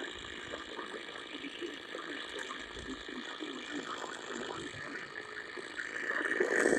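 Indistinct broadcast audio under steady hiss, with faint voice-like fragments throughout and a louder burst near the end.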